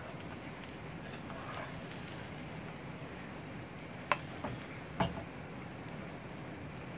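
Frying-pan contents sizzling steadily, with three sharp taps about four to five seconds in.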